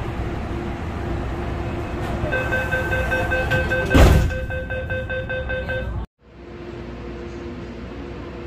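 MTR train door-closing chime: a rapid beeping tone starting about two seconds in and lasting about three and a half seconds, with a loud thud of the sliding doors shutting partway through, over the steady hum of the train. The sound cuts off suddenly about six seconds in, and the train hum returns.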